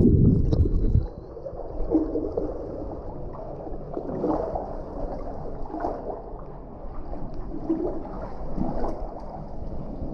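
Shallow cave-stream water sloshing and gurgling close by, with soft irregular splashes every second or two. A loud low rumble in the first second cuts off suddenly.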